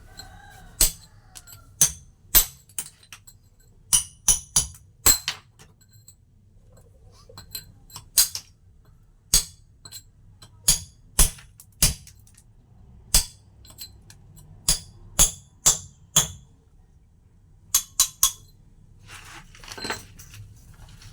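Hand carving of a stone mortar: sharp metallic clinks of a hammer striking a chisel into stone, at an irregular pace, sometimes in quick pairs or threes. A short stretch of rubbing or scraping comes near the end.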